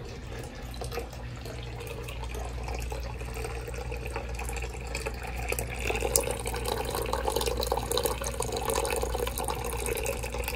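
Water trickling from the mouth of a lion-head wall fountain and splashing into the basin below. It is steady throughout and grows louder from about halfway through.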